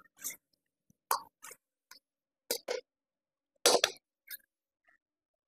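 Metal ladle knocking and scraping against a wok while soup is stirred: about eight short clinks spread through, the loudest a little after the middle.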